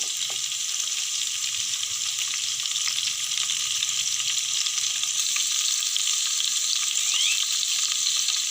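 Marinated chicken leg pieces shallow-frying in oil on a tawa over a low flame: a steady sizzle with fine crackling.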